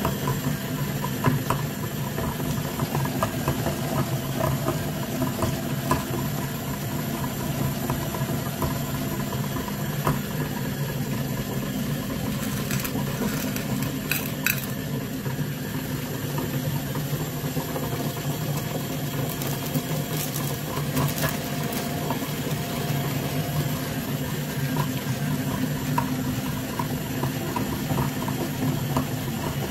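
Mini meat grinder running with a steady low hum as it grinds candy-coated chocolates, with scattered small cracks and clicks. Twice, around the middle and a little later, candies clink against a metal pan.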